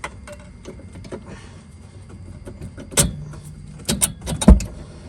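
Metal hand tools clicking and clanking against the engine and on the bench. Sharp knocks come about three seconds in and again near the end, the loudest a heavy clank a second before the end.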